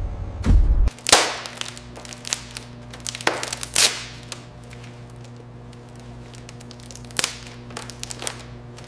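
Several sharp knocks over a steady low mechanical hum. The loudest come about a second in, twice close together between three and four seconds, and once more around seven seconds.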